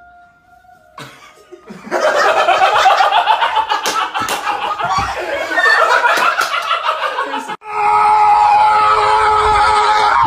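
Several people laughing, with a few sharp smacks mixed in. After a sudden break near the end, steady held tones take over.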